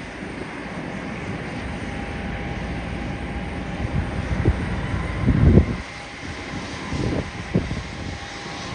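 Airliner jet engines running with a steady whine, and gusts of wind buffeting the microphone several times in the second half.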